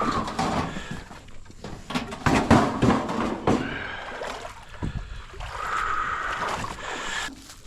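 Water splashing and sloshing around a small boat, with irregular knocks.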